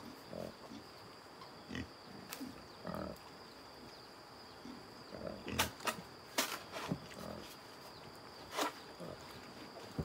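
Black pigs grunting in short, scattered grunts while rooting about, with a few sharp clicks or knocks in the second half.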